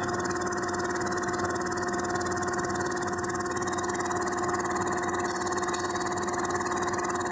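BYC-600 tablet coating machine running: a steady mechanical hum with a few constant tones under an even hiss, unchanging throughout.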